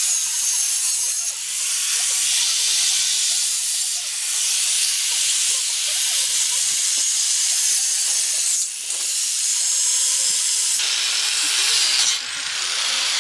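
Loud, steady hissing noise, broken by brief dips a few times.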